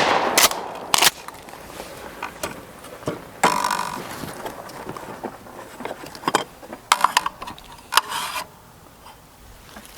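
The echo of a 12-gauge shotgun shot fades away in the first second. It is followed by a scattered series of sharp metallic clicks and clacks from the shotgun being handled between shots.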